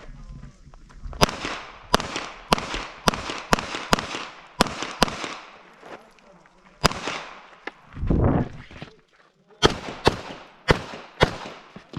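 Gunshots fired in quick strings in a practical-shooting stage, about fifteen in all, mostly half a second or so apart. There is a pause of about two seconds past the middle, broken by a short low rumble.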